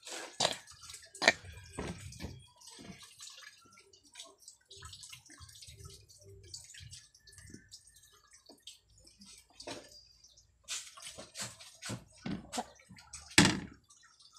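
Sliced eggplant being washed by hand in a bowl of water: irregular splashing and dripping, with scattered knocks of bowls being handled, the sharpest about a second in and near the end.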